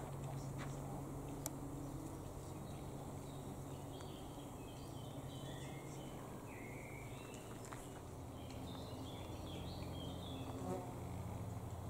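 Bees buzzing: a steady low hum, with faint short high chirps through the middle.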